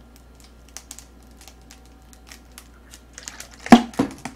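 Soda gulped from a plastic bottle, with small clicks and faint crinkles of the plastic. Two sharp knocks come about three and a half seconds in, as the bottle is set down on the table.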